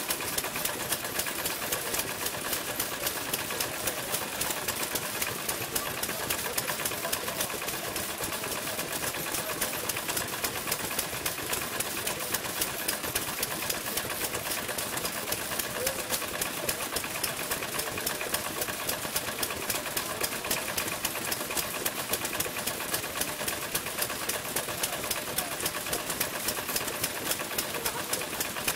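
Several vintage Japanese stationary kerosene engines (hatsudōki) running together, making a fast, even clatter of regular ticks and pops that holds steady throughout.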